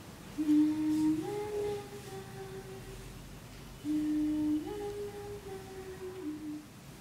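A woman humming a short tune twice, the same phrase each time: a held low note that steps up to a higher one and then drifts back down.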